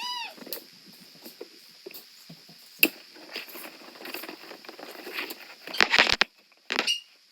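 Tape measure being pulled out in short tugs: scattered clicks, scrapes and rustles, with a sharp click about three seconds in and a louder clatter around six seconds. A brief high cry at the very start.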